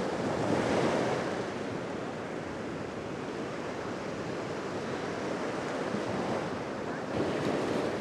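Small Black Sea waves breaking and washing up a sandy shore: a steady surf wash that swells a little about a second in and again near the end.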